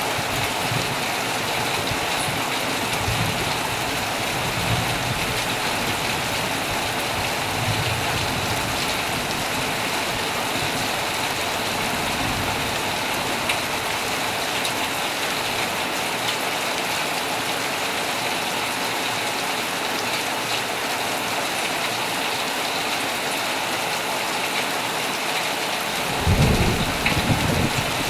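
Heavy rain falling steadily on a tent, with faint low thunder rumbling now and then and a louder roll of thunder near the end.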